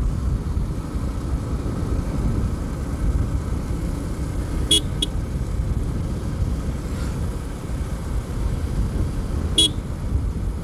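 Steady low rumble of wind and road noise while riding a motorcycle, with short horn toots: two quick ones about halfway through and a single one near the end.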